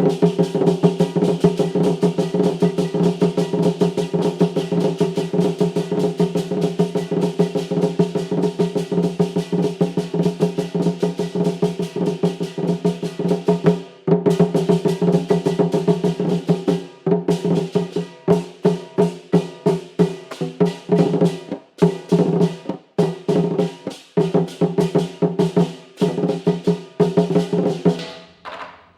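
Live festive performance by a traditional percussion ensemble: rapid drum and wood-block strikes over steady sustained tones. The rolling strikes break off about 14 seconds in and return as separate, evenly spaced beats.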